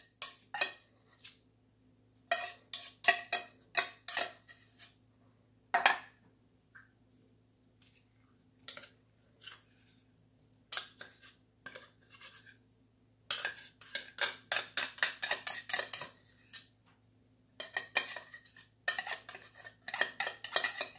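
A metal spoon scraping and clinking against an open tin tuna can and a ceramic mixing bowl as the tuna is spooned out, in quick runs of strokes with short pauses between.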